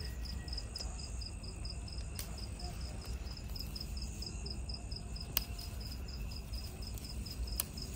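Crickets chirping in a steady, even pulse of about five chirps a second, with a few sharp snaps as leaf stems are pinched off a herb plant.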